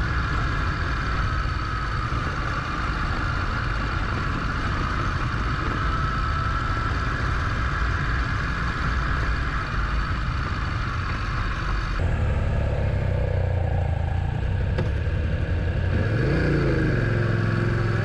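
Adventure motorcycle being ridden, its engine running steadily under wind noise. About two-thirds of the way through the sound changes abruptly and the engine note comes forward, then its revs rise briefly near the end.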